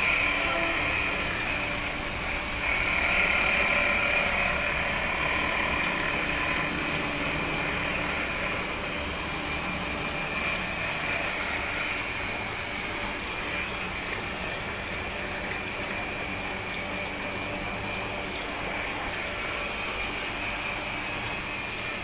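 Electric water pump running steadily on a test run after a welding repair: a continuous machine hum with a high whine over it, strongest in the first few seconds.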